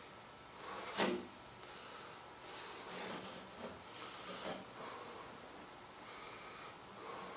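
Faint handling sounds of hands working glue and wood pieces inside a model jet's fuselage: a light knock about a second in, then soft rubbing and rustling.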